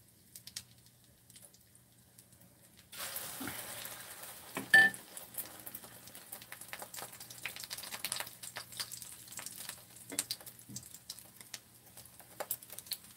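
Egg-battered angelica tree shoot (dureup) laid into hot oil in a frying pan: sizzling starts suddenly about three seconds in and settles into a steady crackle. A brief clink soon after.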